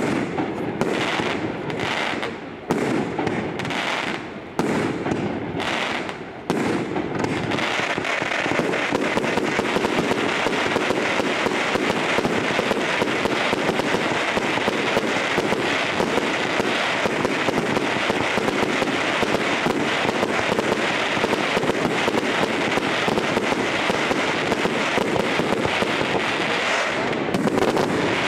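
Fireworks display: separate bangs of bursting shells for the first several seconds, then, about seven seconds in, a dense unbroken stream of crackling and bangs as many shells burst at once.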